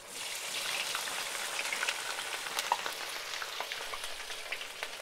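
Breaded chicken nuggets going into hot oil in a wok and deep-frying. The oil sizzles suddenly and strongly as they land and keeps sizzling, with scattered sharp pops.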